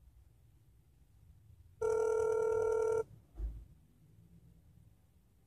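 Phone-line ringback tone heard over a smartphone's speakerphone: one ring about a second long, starting about two seconds in, as the call rings through to an operator. A soft low thump follows just after it.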